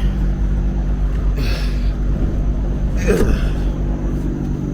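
A steady low engine hum, with two short breathy exhales, one about a second and a half in and another about three seconds in.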